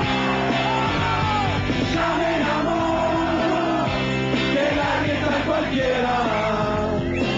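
Rock band playing live, electric guitars over drums.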